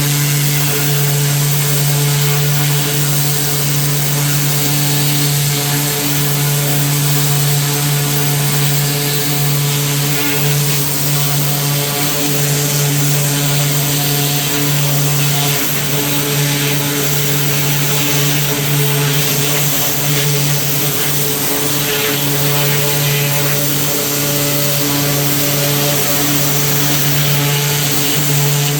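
A small engine-driven machine running steadily at constant speed, a strong even hum with a hiss over it, without a break.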